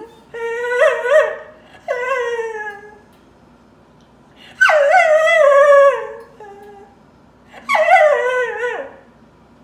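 A spaniel crying: four drawn-out whining howls, each starting high and sliding down in pitch. The third, just under halfway through, is the longest and loudest, at about two seconds.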